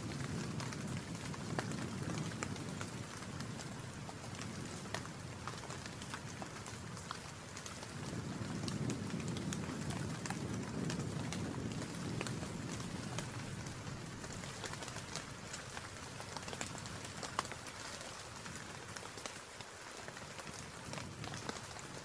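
Steady heavy rain, with many individual drops ticking sharply, under a low wind rumble that swells around the start and again about eight seconds in.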